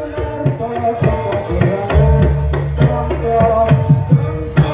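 Javanese gamelan music: hand-drum strokes over ringing metallophone tones, with a deep low tone coming in about two seconds in.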